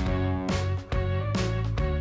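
Background music with a steady beat: sustained pitched notes with strong regular onsets.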